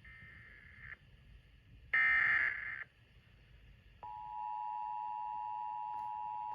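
Emergency Alert System SAME header data bursts: one-second bursts of warbling digital tones, the second much louder. About four seconds in, the steady two-tone EAS attention signal starts and holds, announcing a new warning.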